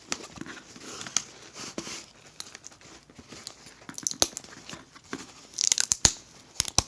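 Packaging being torn open and crinkled by hand: a run of small crackles, rips and clicks, with a louder crinkling rush a little before the end.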